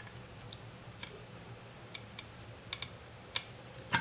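Faint, irregular light clicks and taps, about ten of them, as multimeter probe tips touch metal terminals inside a soldering station during a ground-continuity check, over a low steady hum.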